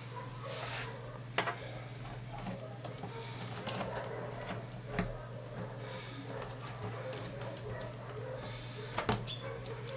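Small clicks and taps of parts being handled as a backlight lamp rail is fitted into an LCD panel's metal frame, with sharper clicks about one and a half, five and nine seconds in, over a steady low hum.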